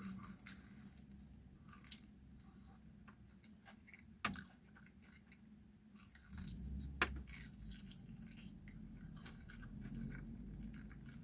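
A person chewing a crunchy-coated fried chicken drumstick, with scattered small crunches and two sharper clicks about four and seven seconds in.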